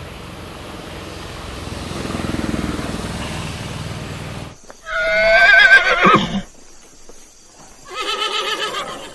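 An animal's loud, quavering call, about a second and a half long, comes about five seconds in after low background noise. A second, shorter quavering call follows near the end.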